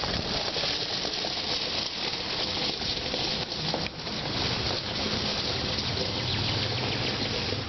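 Steady rushing noise of wind buffeting the microphone, with a low steady hum joining about five seconds in.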